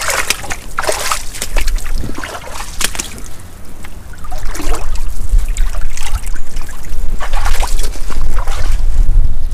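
Sea water splashing and trickling among rock pools in irregular bursts. Wind buffets the microphone as a constant low rumble that grows louder about halfway through.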